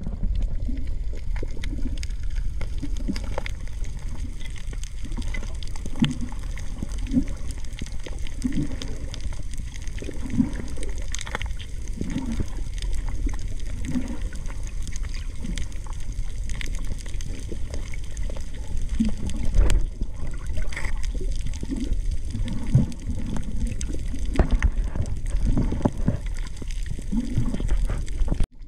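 Underwater water noise picked up by a submerged camera: a steady low rumble with gurgles about once a second and scattered sharp clicks.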